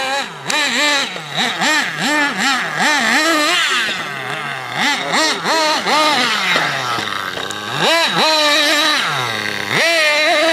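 Nitro RC buggy's small glow-fuel engine revving up and down over and over as it is driven hard, a rising and falling whine. It makes quick blips through the first half, then longer high-revving runs from about eight seconds in and again near the end.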